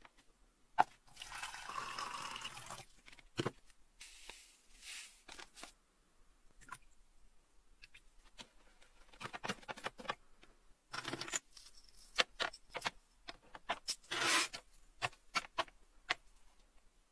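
Rusty metal desk-calendar parts being put into a citric acid bath in a clear tank: stretches of pouring and splashing liquid mixed with sharp metal clinks and knocks.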